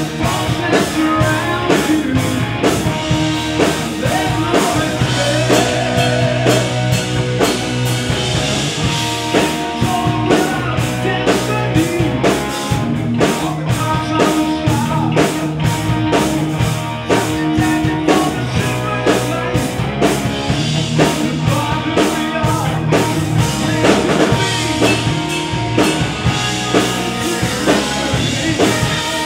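Rock band playing live: drum kit, bass and electric guitar, with a man singing over them.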